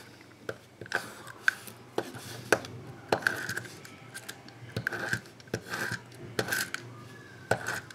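Tape runner laying adhesive onto small pieces of cardstock in a series of short zipping strokes. Sharp clicks and taps come from the runner and paper against the table.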